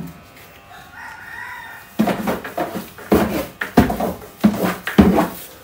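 Chickens: a rooster crowing and hens clucking. It starts faint about a second in, then from about two seconds a run of loud, short calls repeats until near the end.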